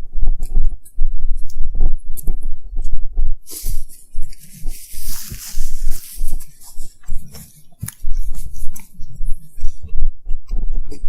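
Close-miked chewing of a Philly cheesesteak sandwich: a run of soft, low thumps of mastication, with a hissing burst from about three and a half to six seconds in.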